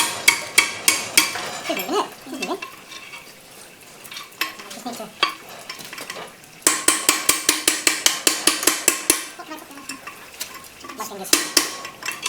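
Rapid metal-on-metal knocking, about five strikes a second, in three runs of a second or two with quieter gaps between, like a hammer working on steel.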